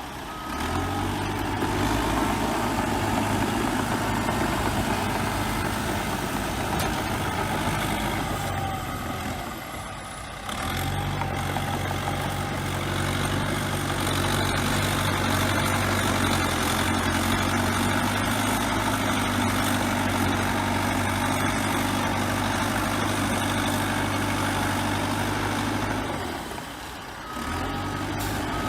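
Bulldozer's diesel engine running steadily, with brief dips in level about ten seconds in and again near the end.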